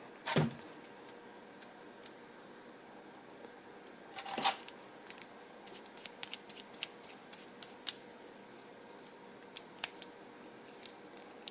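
Small irregular clicks and scrapes of a small screwdriver turning the clamp screw of a plastic pluggable screw terminal to clamp a stepper-motor wire. There is a short snip just after the start and a louder scrape about four and a half seconds in.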